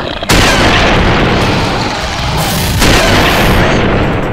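Two loud booming blasts, the first about a third of a second in and the second near three seconds in, each followed by a second or more of rumbling noise.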